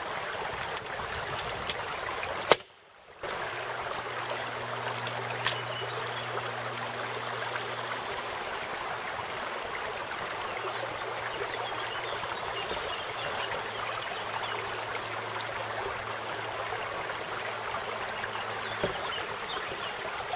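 Mountain stream running steadily, with a few faint clicks, a faint low hum through the middle, and a brief drop-out about three seconds in.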